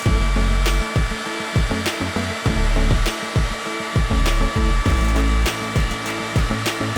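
High-speed spindle of a Beaver CNC milling-engraving router running with a steady high whine, with background music with a regular beat under it.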